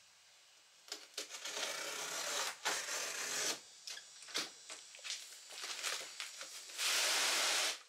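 Heavy cardboard box holding a water heater scraping and sliding on a concrete floor as it is tipped and walked into place, with scattered knocks. There is one long rough scrape early on, and a louder, even scrape near the end that stops abruptly.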